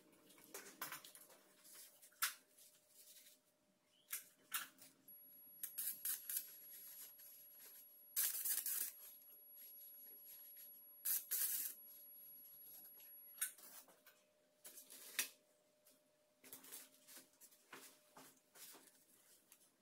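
A Kentamed 100 W electrosurgical unit in use, coagulating small blood vessels: a faint, high, steady whine lasting several seconds, broken by short sizzling bursts as the electrode works the tissue. Rubbing and handling noises of gloves, gauze and drape come and go around it.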